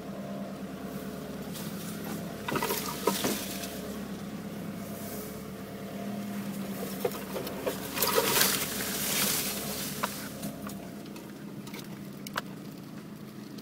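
Nissan Navara engine running at a low, steady crawl, heard from inside the cab. Bush branches scrape and brush along the body twice, a few seconds in and again about halfway, with a few scattered clicks and snaps.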